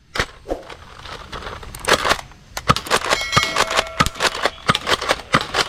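Plastic toy gun being handled: scattered clicks and knocks, then a fast run of clicks, about seven a second, from about halfway in.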